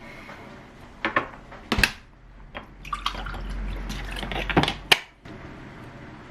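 Kitchen sounds: a couple of sharp clatters of kitchenware, then water running for about two seconds with more knocks near the end before it shuts off suddenly.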